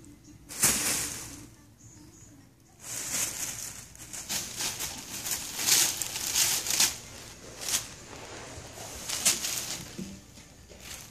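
Thin plastic carrier bag crinkling and rustling as a cat wriggles and pounces about inside it. There is a sharp rustle about half a second in, then a longer run of rustling bursts from about three seconds in, with scattered crinkles after.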